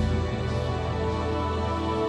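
Music: sustained chords over a deep bass line, the bass dropping out near the end.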